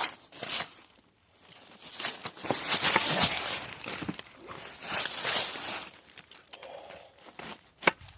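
Rustling and crinkling noises in several bursts, with a sharp click shortly before the end.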